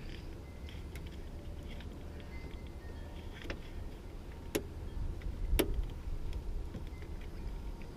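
Light clicks and knocks of hands working a pickup door's latch rods and plastic clip, with two sharp clicks about halfway through, over a steady low rumble.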